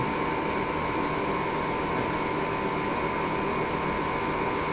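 CNC lathe running an automatic machining cycle: a steady mechanical whir with a constant high whine.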